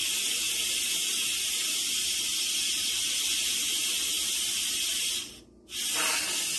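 Electric pressure cooker's steam-release valve venting a steady hiss of steam under a small cover: a manual pressure release after the cooking cycle has finished. The hiss cuts out for about half a second a little over five seconds in, then resumes.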